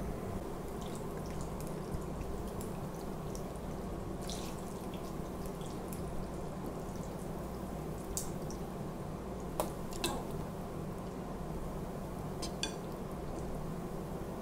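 Chopsticks stirring and lifting kalguksu noodles out of a glass bowl of spicy broth: soft drips and splashes of broth falling back into the bowl, with a few light clicks of the chopsticks against it, over a steady low hum.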